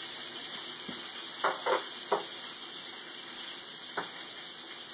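A roast searing in a cast iron skillet, sizzling steadily. A few short knocks come about a second and a half in, and one more near the end.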